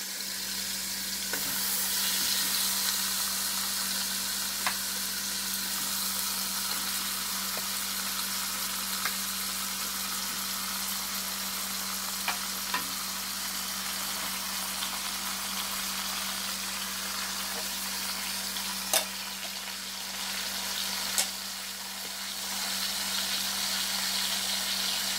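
Pork chops sizzling as they fry in a nonstick pan with a little oil, a steady hiss that grows louder about two seconds in and again near the end. A few sharp clicks come as the chops are moved in the pan, over a steady low hum.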